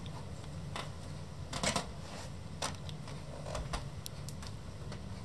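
Irregular light clicks and knocks, about a dozen, over a low steady hum: handling noise from a handheld camera and footsteps as it moves through a boat cabin onto a wooden-floored corridor.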